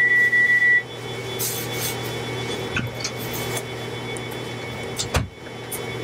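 A loud, steady high-pitched electronic beep that cuts off about a second in, leaving a steady low electrical hum with a few faint clicks and a soft knock near the end.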